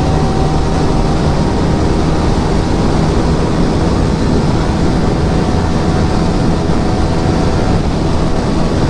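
Yamaha R15 V3's single-cylinder engine through an Akrapovic aftermarket exhaust, running steadily at highway speed, with wind rushing over the rider's microphone.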